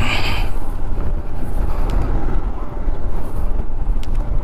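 Motorcycle being ridden on a rough off-road mountain track: a steady engine and road rumble, with wind buffeting the microphone.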